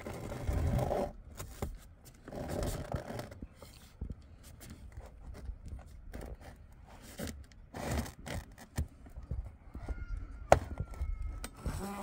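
Scraping and rustling of a white foam sheet and a metal bar laid across it as a straightedge, in a few short bursts, with a sharp click near the end.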